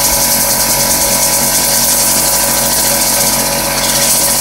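Compressed air hissing steadily from an air blow gun aimed at fidget spinners to spin them up, over a steady mechanical hum.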